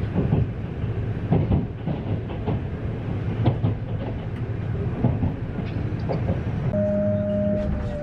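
Haruka limited express train running, a steady low rumble with irregular clacks of the wheels over the rail joints. Near the end a steady tone starts and falls slowly in pitch.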